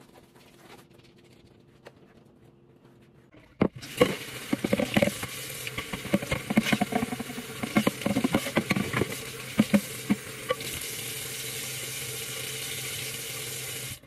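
Tap water running into a stainless steel sink while something is washed under it, with many short knocks and clatters against the sink at first, then the water running on its own. It starts about four seconds in, after a few very quiet seconds.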